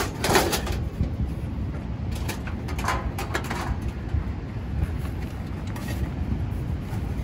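A few sharp clicks and clatters of a folding Coleman camp oven being fitted together, its tabs pressed into place, over a steady low rumble.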